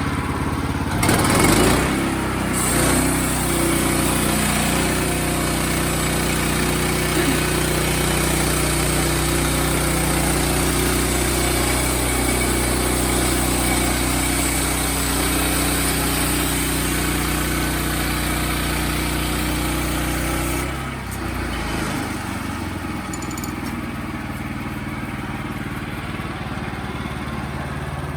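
Wood-Mizer portable band sawmill's engine running under load as the band blade saws through a log, with a steady hiss from the blade. About twenty seconds in the cut ends and the engine drops back to a lower, quieter run.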